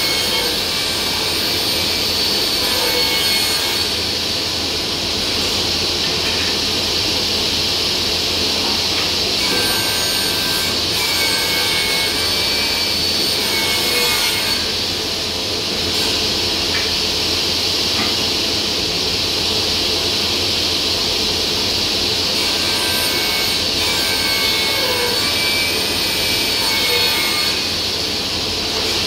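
Spindle moulder and dust extractor running steadily and loudly. Three times a higher ringing note joins the machine sound for a few seconds, as the spindle cutter works through wood.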